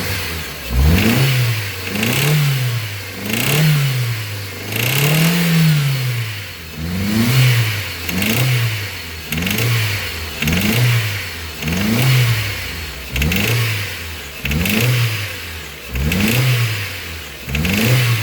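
Ford Zetec Rocam four-cylinder petrol engine blipped repeatedly from idle, over a dozen short revs about a second apart, with a loud knocking noise. The knock sounds like a connecting rod, but the mechanic traces it to a head gasket blown between cylinders, which lets flame pass into the next cylinder and cause pre-ignition.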